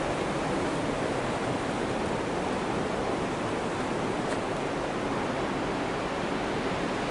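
Overlander Falls on the Fraser River, a large waterfall, making a steady, unbroken rush of falling water.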